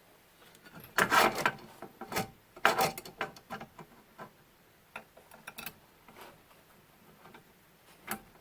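Metal tool scraping and clicking against the screws and mount bracket while blindly trying to catch the hidden bottom screws of a CNC router's spindle mount. There are two longer scrapes early on, then scattered light clicks and taps.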